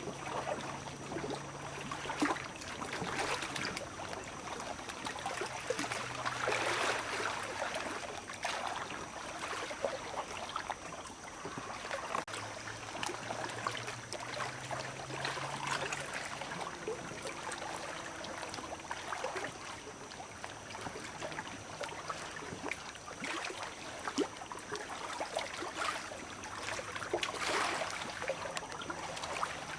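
Steady outdoor water noise, like a stream, with many short clicks and crackles scattered through it and a faint low hum that comes and goes.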